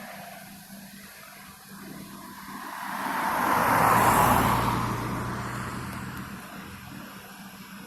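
An aircraft passing overhead: its engine noise swells to a peak about four seconds in, then fades away.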